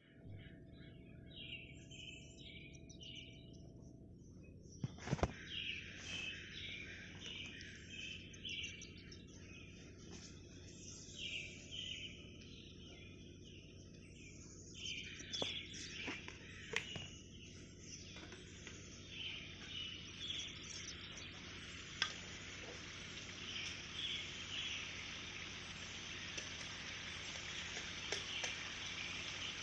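Forest birds chirping in repeated short, high phrases, with a few sharp clicks now and then. A steady high hiss builds up through the second half.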